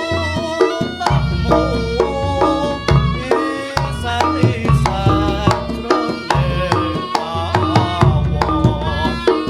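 Reog music with hand drums and struck percussion beating out a fast, dense rhythm under a wavering melodic line. It is played loud through a sound system with heavy, pulsing bass, as in a sound-system check.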